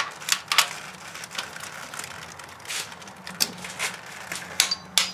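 Click-type torque wrench ratcheting on a cylinder head bolt, a series of irregular sharp clicks, during the first-stage tightening of the bolts to 37 foot-pounds in sequence.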